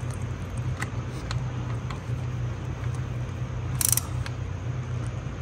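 Torque wrench tightening a transmission solenoid-pack bolt to 71 inch-pounds: a few light ratchet clicks, then one sharp click about four seconds in, over a steady low hum.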